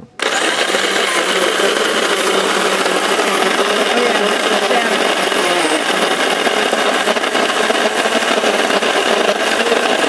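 Capresso 559 flat-burr coffee grinder switched on, its motor starting abruptly and then running steadily as the burrs grind whole coffee beans at a medium setting.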